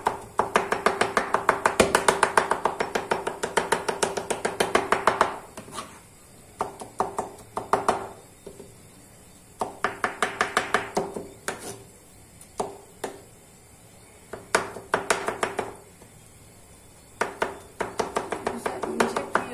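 Kitchen knife chopping soft, cooked, peeled eggplant finely on a wooden cutting board, in quick runs of several strikes a second. A long run opens, then shorter bursts follow with pauses between.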